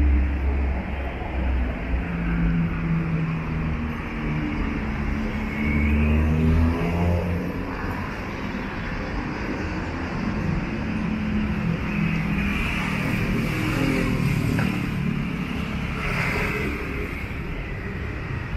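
Road traffic: car engines running and passing, with an engine rising in pitch as it accelerates about five seconds in.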